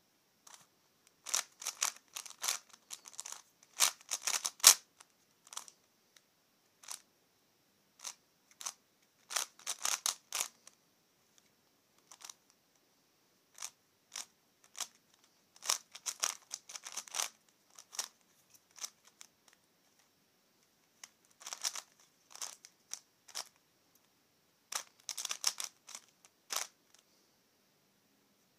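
C4Y 3x3x5 cuboid twisty puzzle being turned quickly by hand: bursts of sharp plastic clicks as its layers turn, separated by pauses of a few seconds.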